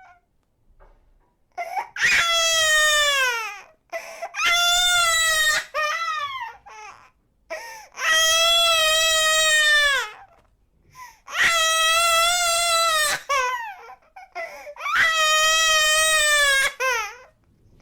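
Baby crying: about five long, high wails of roughly two seconds each, each dropping in pitch as it ends, with short gasping breaths between them.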